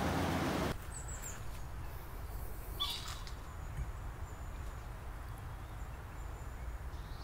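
A hiss stops abruptly under a second in. After it, faint scattered high chirps sound over a low steady hum.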